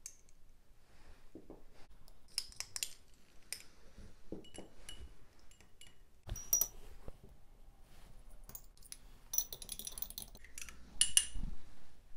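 Metal spatula and small glass beakers clinking together, with scattered sharp chinks and brief glassy rings, as a liquid solubilizer is scooped and poured into a glass dish of water. The clinks come thickest in a quick cluster near the end.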